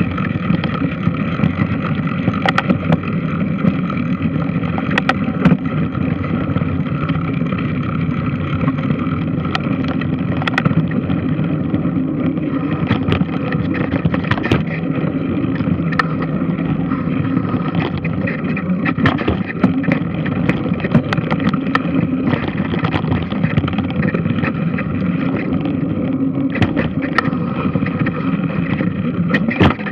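Large washing machine running: steady motor noise with churning water, and scattered sharp clicks and knocks throughout.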